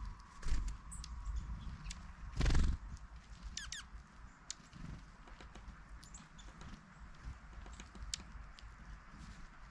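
Pileated woodpecker pecking and chipping at wood while foraging: scattered irregular taps, with one louder knock about two and a half seconds in.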